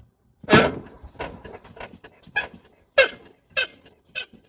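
Front suspension of a 1981 Chevrolet C10 squeaking in a steady rhythm, about seven sharp squeaks, roughly one every 0.6 s, the first and one near the middle the loudest. The squeak is blamed on worn lower control arm bushings, and a worn ball joint.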